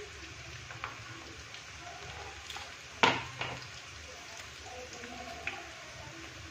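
Chopped onions frying gently in oil in an aluminium kadai: a soft, steady sizzle with scattered small pops as whole spices are dropped in. A single sharp knock about three seconds in is the loudest sound.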